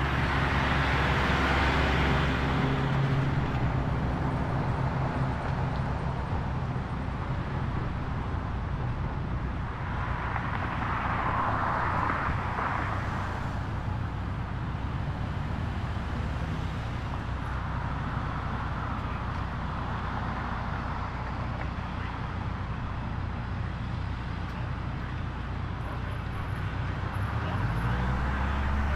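Road traffic: a steady low engine rumble, with the noise swelling as vehicles pass about ten to fourteen seconds in, and an engine rising in pitch near the end.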